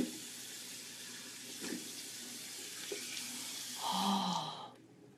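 Bathroom sink tap running as water is splashed up to rinse a scrub off the face, stopping shortly before the end. A short vocal sound comes just before the water stops.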